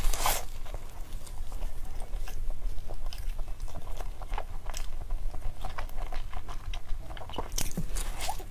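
A person biting into and chewing food close to the microphone: many small crunching clicks, with a sharper bite at the very start.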